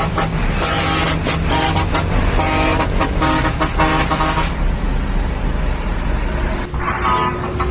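A heavy truck's custom horn sounding a rapid series of short toots, about two to three a second, over the low rumble of a diesel truck engine. The toots break off about four and a half seconds in, leaving engine and road noise, and start again near the end.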